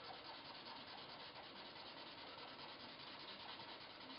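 Black felt-tip marker scrubbing back and forth on paper, shading in a dark area; faint and steady.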